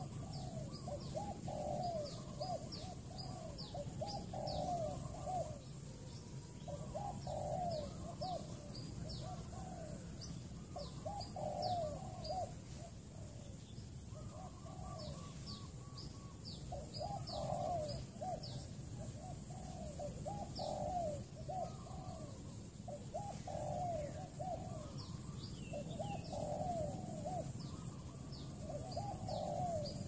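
Spotted dove cooing over and over in short phrases of several low, rolling notes, with brief pauses between phrases. Thin, high, quick chirps from a small bird run over it.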